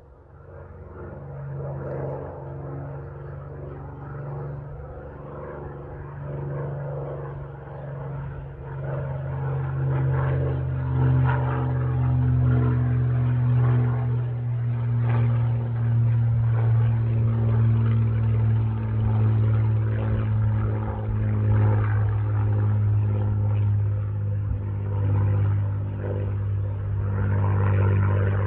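Spitfire's piston engine droning as the fighter flies past. It grows louder over the first ten seconds and then holds, its low note sinking slowly in pitch.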